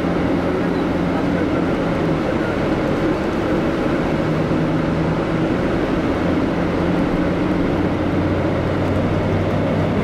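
Engine and road noise inside the cabin of a moving city bus: a steady, loud drone with a low engine hum whose pitch shifts slightly now and then.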